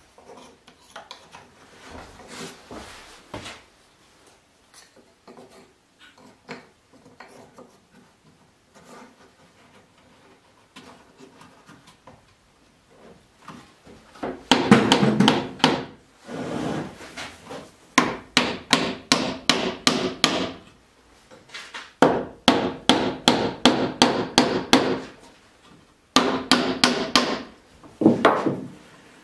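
Nuts on homemade wooden bar clamps being tightened with a ratchet wrench: faint handling knocks at first, then from about halfway loud runs of rapid sharp clicks, several a second, in bursts of one to three seconds.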